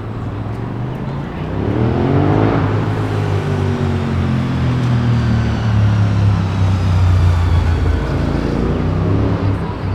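A train running through the station: a loud, deep steady hum with a motor whine that rises in pitch about two seconds in and then slides back down.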